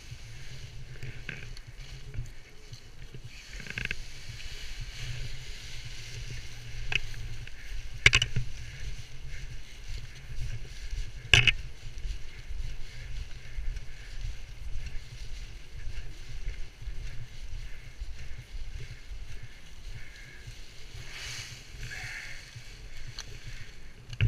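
Wind rumbling on the microphone, with two sharp knocks about eight and eleven seconds in.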